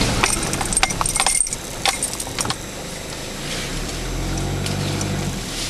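Inside the cab of a moving vehicle on a rough dirt track: rattling and jingling clinks in the first couple of seconds over the engine running, then the engine hum swelling briefly near the end.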